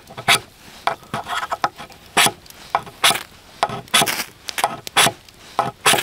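Knife scraped again and again down a ferrocerium fire-steel rod: about a dozen quick, uneven, hissing strokes. The early strokes wear off the rod's black coating.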